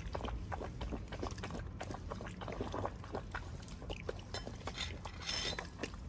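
A dog lapping meat broth from a stainless steel bowl: a quick, irregular run of wet licks and clicks.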